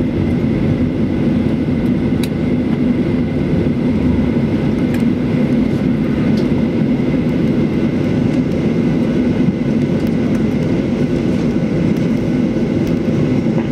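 Steady cabin rumble of a Boeing 737-800 rolling on the ground after landing, its engines and wheels making a low, even roar. A few faint ticks come through now and then.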